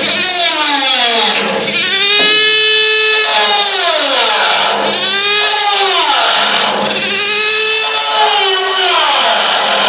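Handheld power tool, its motor whining up in pitch and back down again several times, about every two seconds, as the trigger is squeezed and eased.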